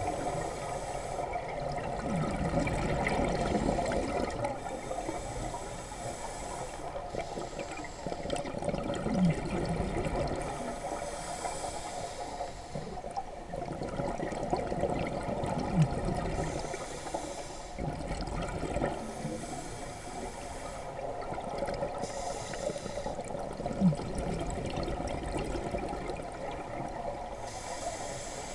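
Scuba regulator breathing underwater: a hiss of inhaling through the regulator comes and goes every few seconds, between the gurgle of exhaled bubbles. Three brief low sounds stand out, several seconds apart.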